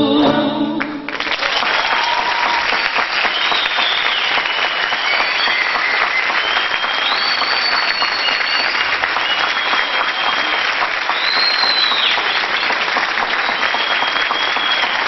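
The singer and orchestra's last notes end about a second in, then a concert audience applauds steadily, with several high whistles over the clapping.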